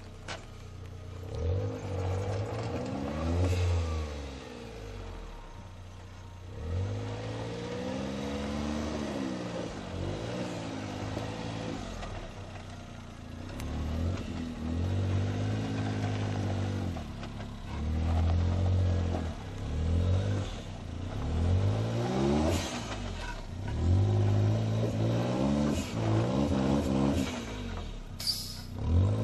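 Suzuki Jimny JA11's small three-cylinder turbo engine, revving up and easing off again and again as it crawls under load up and down steep dirt mounds, with a few knocks near the end.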